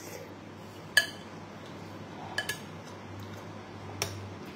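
A metal spoon clinking against a ceramic rice bowl four times: one loud clink about a second in, a quick pair in the middle, and a last one near the end.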